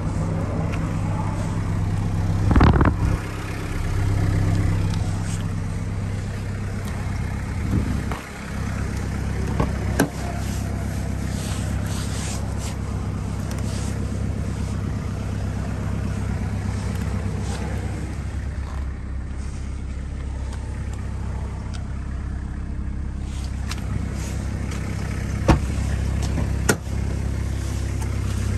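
A 1996 Toyota Carina's 2.0 L 2C-T four-cylinder turbo-diesel idles steadily. Over it come a few sharp knocks and clicks of the car's doors being handled, the loudest a couple of seconds in.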